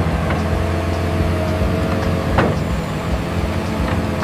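Heavy construction vehicle's engine running steadily, with a single sharp knock about two and a half seconds in.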